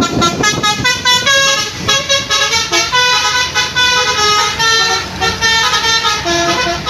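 Bus's basuri telolet horn playing a quick melody of short notes that change pitch several times a second, over the low rumble of the passing bus.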